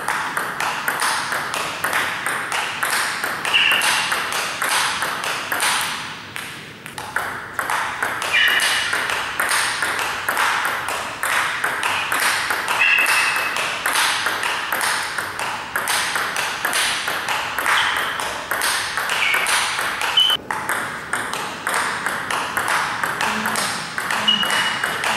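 Table tennis topspin rally: the ball clicks sharply and rapidly off rackets and table in a steady rhythm, with a brief break about twenty seconds in. A celluloid ball is in play first, then a plastic DHS 40+ poly ball.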